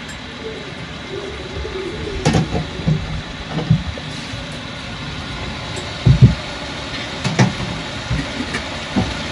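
Chopped onions and potatoes frying in oil in a large aluminium pot, a steady sizzle, with a few dull thumps and knocks.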